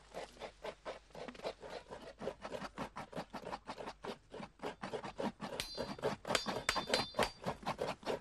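Fast, even hand-scraping strokes, about four to five a second, with a few high thin chirps about two-thirds of the way through.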